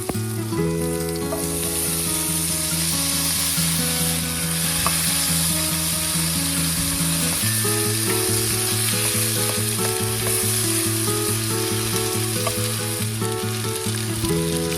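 Food sizzling as it fries in a pan, a steady hiss throughout, with background music of held chords underneath.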